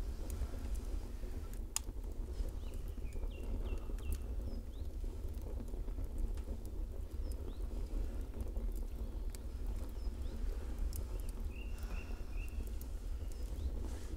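Campfire crackling, with scattered sharp pops over a steady low rumble of night ambience. Short high chirps come in quick runs of three or four, twice: about two and a half seconds in and again near the end.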